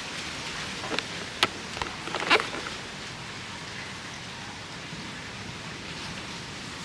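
Light rain starting to fall: a steady hiss, with a few sharp taps in the first couple of seconds.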